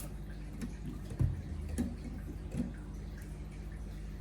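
A few light clicks and taps, with a soft knock about a second and a quarter in, from plastic LEGO pieces being handled, over a steady low hum.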